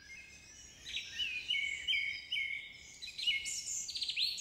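Small songbirds chirping: a series of short, repeated whistled notes, then a quick rapid trill near the end.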